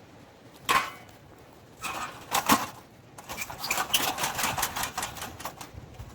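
Campfire crackling: a loud pop, a few more sharp cracks, then a quick run of small crackles and ticks.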